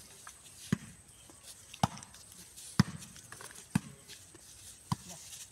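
A volleyball struck by bare hands in a rally: five sharp slaps, about one a second, as the ball is passed back and forth.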